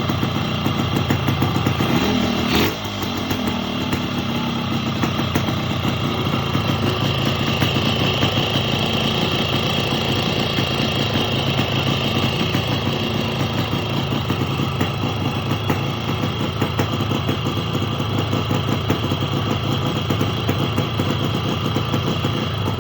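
Yamaha RX-King's two-stroke single-cylinder engine running steadily, with a brief rev and fall about two seconds in.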